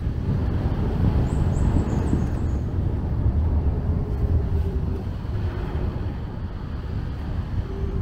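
Car driving on a wet road: a steady low rumble of engine and tyre noise.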